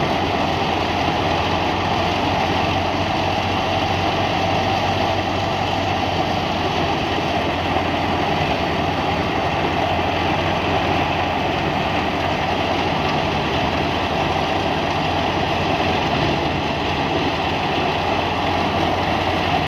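Tractor-driven wheat thresher working: the Massey Ferguson 265's diesel engine and the thresher's drum and blower run together as one steady, even machine noise while it blows out chaff.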